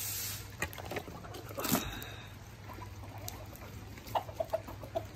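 Chickens scratching and pecking at scattered turkey scraps in wet leaf litter, with a louder rustle about two seconds in and a few soft clucks near the end.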